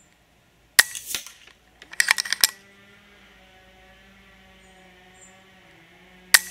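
FX Impact .22 regulated PCP air rifle firing a shot, a sharp crack, about a second in, followed by a quick run of mechanical clicks as the side-lever action is cycled to chamber the next pellet. A second shot comes near the end.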